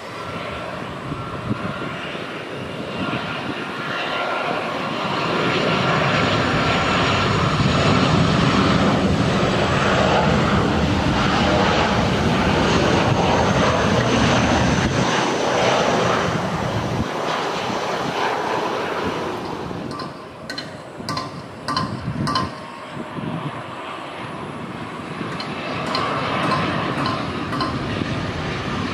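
Boeing 737-800 jet engines on a low landing approach: a steady whine at first, then the noise swells to a loud steady peak as the jet passes and fades off. A few sharp clicks, then another jet airliner's engines grow louder near the end.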